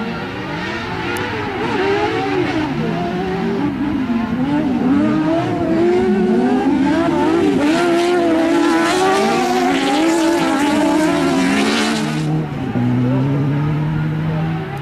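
Several off-road racing cars and buggies at high revs on a dirt autocross track, their engine pitches rising and falling as they accelerate and shift. The loudest stretch comes as a buggy slides close by with a rushing hiss, which stops suddenly about twelve seconds in, leaving a steadier, more distant engine note.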